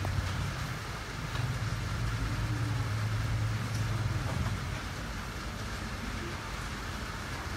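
Steady low rumble of passing vehicles over an even hiss, swelling for about three seconds from a little after a second in as a vehicle goes by.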